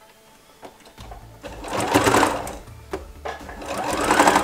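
Electric sewing machine stitching in two short runs, starting about a second in with a brief stop between them, as the fabric is pivoted with the needle down.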